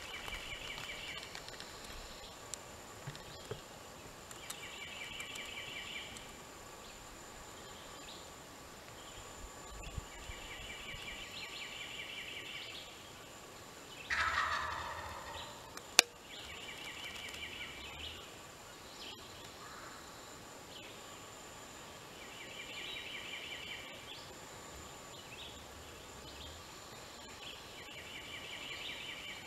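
A wild turkey gobbler gobbling loudly about halfway through, a tom answering the hunter as it comes in. Short trilled bird calls repeat every five or six seconds, and a single sharp click comes just after the gobble.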